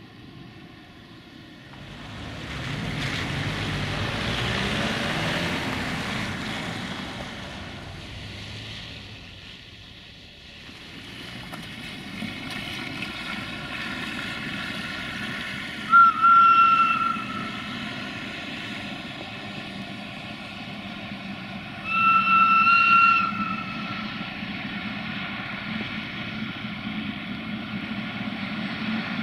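CFR 060-DA (LDE2100) Sulzer diesel-electric locomotive approaching with a freight train, its engine running with a steady hum. Its whistle sounds twice, short high blasts each about a second and a half long, about halfway through and again near the end. Early on, a rush of noise from a passing road vehicle rises and fades.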